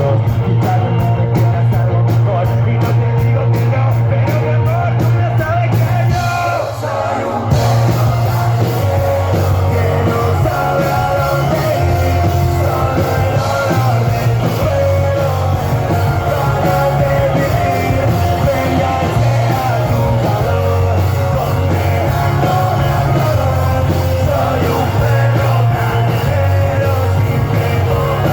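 Rock band playing with singing over guitars and drums. About six seconds in the music thins out briefly, then the full band comes back in.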